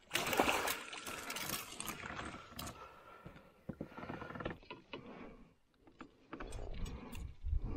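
Fish landing net lifted out of the water into a kayak, with about a second of splashing and dripping at first, then scattered clicks and knocks of the net frame and tackle against the kayak as a small musky is unhooked with pliers. A low rumble comes in near the end.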